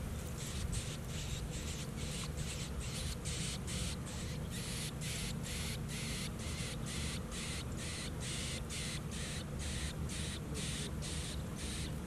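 Nestling birds begging for food, a steady run of harsh raspy calls at about three a second: hungry chicks waiting to be fed. A steady low rumble sits underneath.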